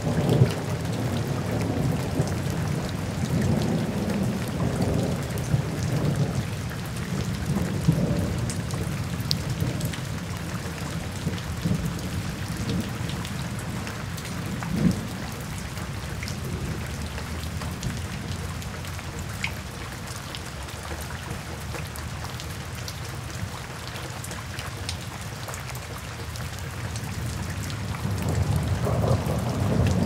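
Heavy rain falling steadily, with low thunder rumbling through the first several seconds, fading, and building again near the end.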